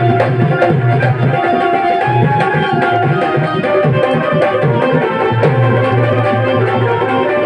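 Devotional bhajan music: harmonium playing held, droning chords over a hand drum keeping a steady rhythm.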